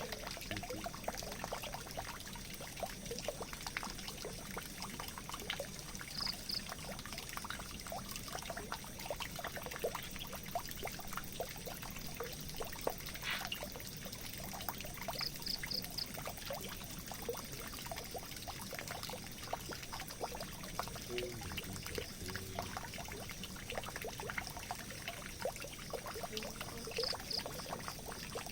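Water running into a drain, a steady pouring trickle made of many small splashes and drips. Brief high chirps come three times.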